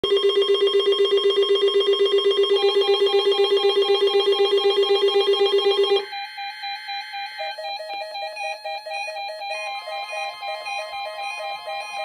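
Weather-alert radios sounding their alarms for a NOAA Weather Radio required weekly test. One loud, rapidly pulsing low alarm tone runs for about six seconds, then stops. Several higher beeping alert tones from the other radios overlap after that.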